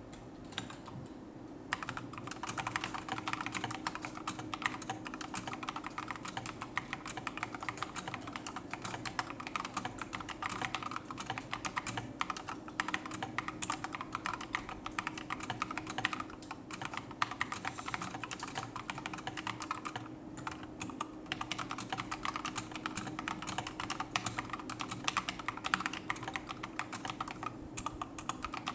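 Typing on a mechanical keyboard with Akko CS Matcha Green switches and SA profile doubleshot PBT keycaps: a steady run of key clacks that starts about two seconds in and goes on with a few short pauses.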